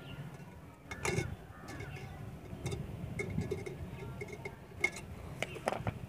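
Scattered sharp metallic clicks and clinks of pliers gripping and twisting steel wire around the neck of a terracotta pot, the loudest about a second in and a few more near the end.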